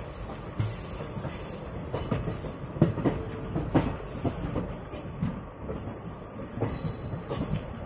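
Intercity express passenger train running, heard from inside a coach: a steady rumble with irregular clacks as the wheels pass over rail joints, most frequent in the middle, and a brief wheel squeal a little past three seconds in.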